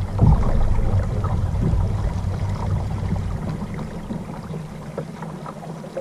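Kayak under way on a Torqeedo Travel 1103 electric outboard: water rushing along the hull over a steady low motor hum. The hum drops away about two-thirds of the way through.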